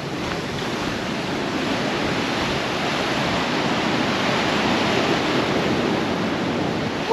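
Ocean surf washing ashore, a steady rushing hiss that builds a little over the first few seconds.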